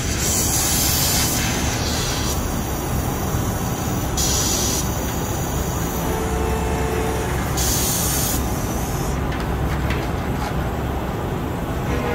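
Spray jet hissing in three short bursts a few seconds apart over a steady low rumble.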